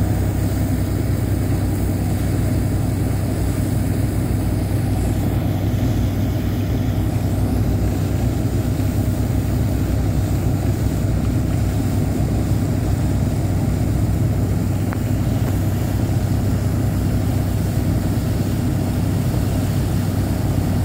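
A boat's engine running steadily, a low even drone that holds at one pitch.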